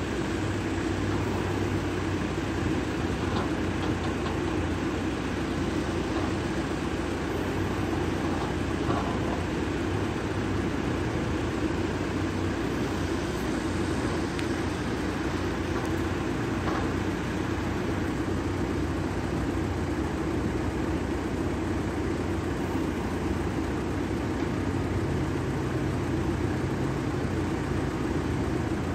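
A heavy diesel engine running steadily at an even pitch, with a low hum. The hum shifts slightly about 25 seconds in.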